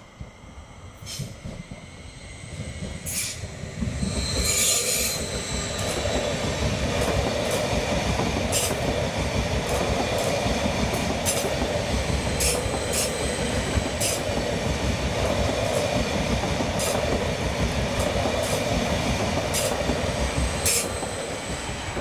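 Multiple-unit passenger train passing close by at a level crossing. Its wheel-and-rail rumble grows over the first few seconds and then runs steady as the coaches go by, with scattered sharp clicks from the wheels on the track and a brief high squeal about four seconds in. It eases slightly near the end.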